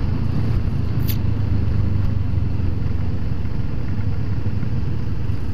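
Motorcycle engine running steadily at road speed, with a low, even rumble and wind and road noise, heard from a camera mounted on the bike's handlebars.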